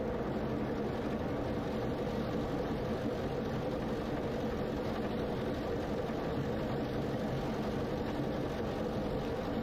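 Steady drone of a tractor running while it pulls a fertilizer spreader buggy across the field, with no changes or sudden sounds.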